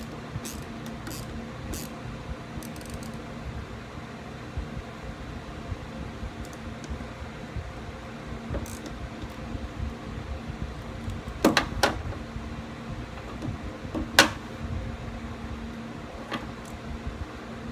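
Scattered small metallic clicks and taps of a wrench tightening a nut on a car battery terminal, with two sharper clicks about two-thirds of the way through, over a steady background hum.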